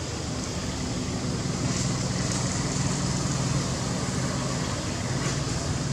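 Steady low hum of a running engine under a constant hiss of background noise.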